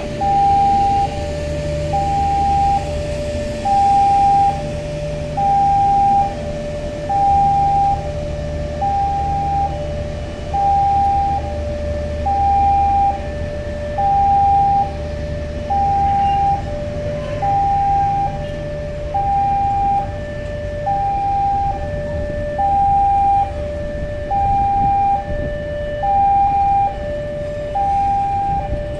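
Railway level-crossing warning alarm sounding a steady two-tone pattern, a higher and a lower tone alternating in half-second blasts. This signals that the barrier is down while a train passes. Under it, a slow-moving train rumbles low through the first half and fades away.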